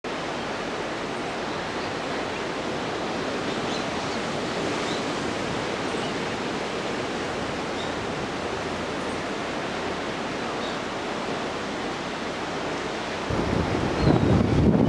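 Steady rush of sea surf breaking on a rocky coast. About a second and a half before the end it turns suddenly louder and deeper, with wind buffeting the microphone.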